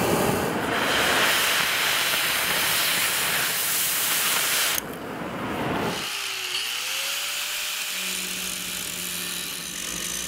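Oxy-acetylene torch flame hissing steadily while heating a steel strip; the hiss cuts off suddenly about five seconds in. Then comes a quieter stretch in which an angle grinder's motor whines up in pitch and levels off into a steady tone.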